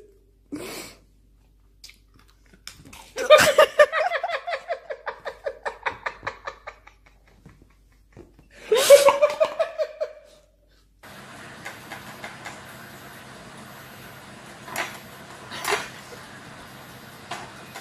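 A person laughing hard, a long run of quick high-pitched pulses that fade out, then a second high squeal of laughter. After that comes a steady low hum with a few light taps.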